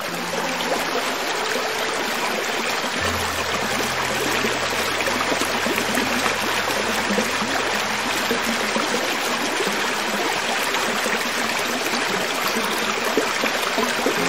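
Creek water running over rocks: a steady rushing and trickling, with faint low steady tones underneath.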